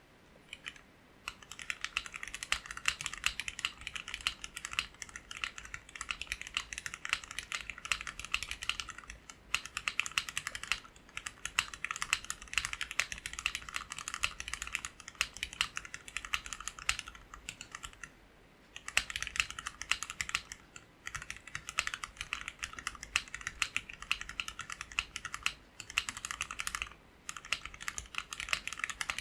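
Typing on a custom 60% mechanical keyboard with linear Gateron Black KS-3 switches (spring-swapped to 62 g), polycarbonate plate, gasket mount in an acrylic case and PBT keycaps: rapid keystroke clacks in runs with brief pauses between.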